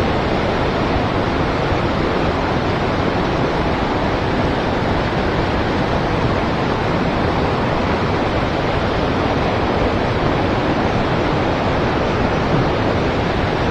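Steady, unbroken rush of river water flowing around the wading angler.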